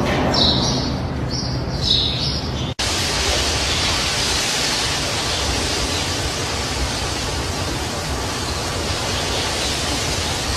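A steady hiss, like static, with a few faint high chirps in the first two seconds and a split-second break about three seconds in.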